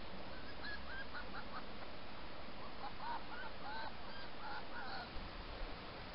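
Fox giving short, yelping calls with a rise and fall in pitch: a few about a second in, then a quicker run of about six a couple of seconds later.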